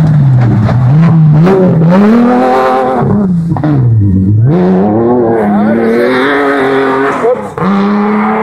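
Rally car engine revving hard at full throttle, its pitch climbing and dropping again and again with gear changes and lifts off the throttle, falling deepest about four seconds in.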